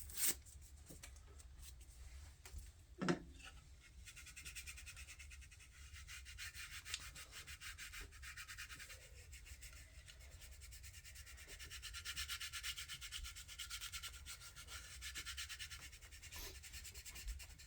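Alcohol wipe being rubbed over the grip of a Glock 21's polymer frame in quick, faint, repeated strokes, cleaning it before adhesive grip tape goes on. A short knock about three seconds in.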